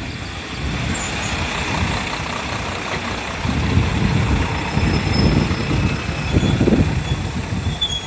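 JR Shikoku KiHa 54 diesel railcar rolling slowly into the station past the platform, its diesel engine running and wheels rumbling on the rails. The low rumble grows louder about halfway through as the railcar draws alongside and slows.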